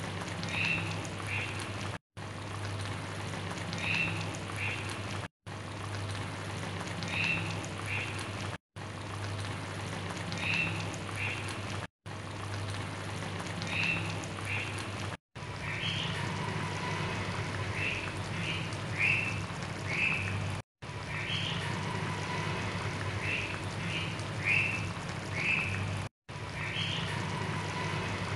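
Fish broth simmering in a wok: small bubbling pops over a low steady hum, cut by brief dropouts about every three seconds.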